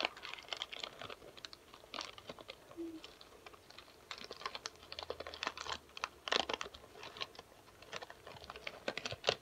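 Pouch of freeze-dried astronaut ice cream crinkling and crackling as it is picked and pulled open by hand: a string of irregular sharp crackles, thickest in a few clusters.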